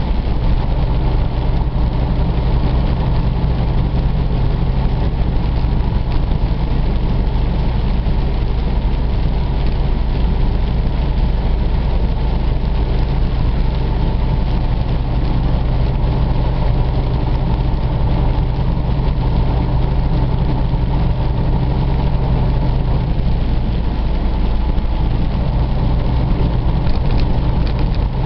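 Steady low drone of a Freightliner Cascadia semi truck's engine, with tyre and road noise, heard inside the cab while cruising on a wet highway.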